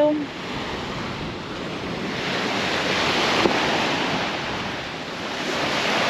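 Small waves breaking and washing up a sandy beach, the surf swelling twice, with wind.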